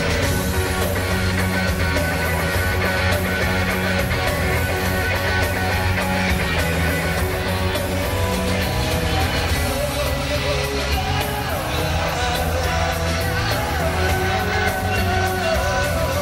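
Live rock band playing loud: electric guitar, bass and drums with a steady beat, and a man singing into a handheld microphone over it.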